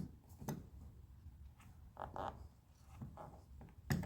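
Faint rubbing of rubber weatherstrip being pushed into place by hand, with a few light clicks and taps as its push-in fasteners are pressed into the holes.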